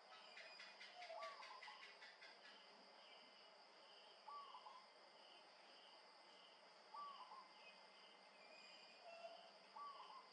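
Zebra dove cooing: four short, soft trilled coos about every three seconds, over a steady high insect drone and faint insect chirping. A burst of rapid high ticking comes in the first two seconds.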